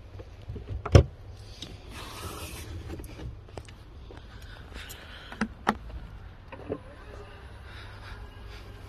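Handling noises in an SUV's boot: a sharp knock about a second in as the under-floor storage lid drops shut, a brief rustle, then two quick clicks a little past midway and another shortly after, over a low steady rumble.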